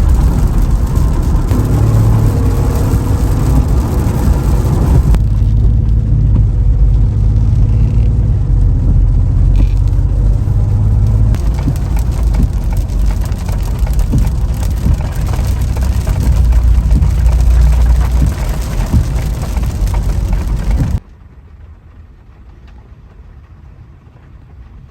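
Loud, steady low rumble of a car driving on the road, with a hiss like rain. It changes abruptly about five seconds in and cuts to a much quieter background near the end.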